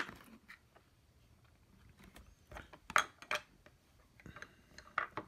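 Scattered light clicks and taps of small electronic parts and a cable being handled and fitted together, with a cluster of louder clicks about three seconds in.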